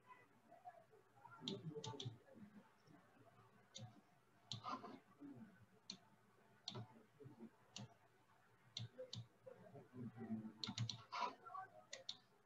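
Faint computer mouse clicks, a dozen or so at irregular intervals, as a charting tool on screen is clicked and dragged.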